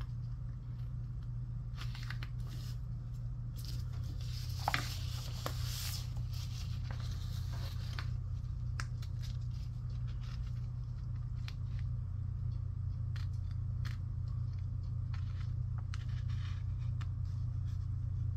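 Scissors snipping around the curves of a decal sheet: many small separate cuts and clicks, busier from about four to eight seconds in. A steady low hum runs underneath.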